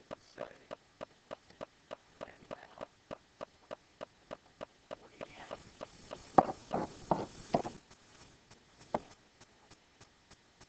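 Fast, even ticking, about three ticks a second. Between about six and eight seconds in, a few louder scratchy strokes of a pen writing on an interactive whiteboard, with one more stroke near nine seconds.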